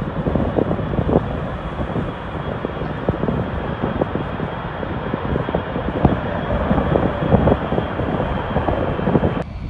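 Jet airliner's engines at high power, a loud steady noise with a rough crackle running through it, until the sound changes abruptly near the end.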